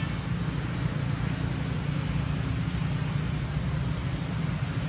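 Steady low-pitched outdoor background noise with no distinct barks or monkey calls standing out.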